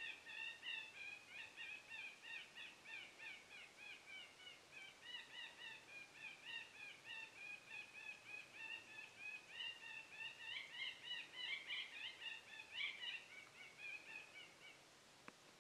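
Electronic predator call playing a yellowhammer (northern flicker) woodpecker sound at low volume: a long, fast run of repeated high calls that stops about a second before the end, followed by a single faint click.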